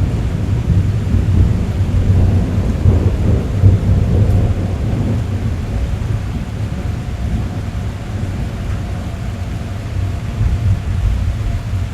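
Rain drumming steadily on a car roof, heard from inside the cabin, with a deep steady rumble underneath.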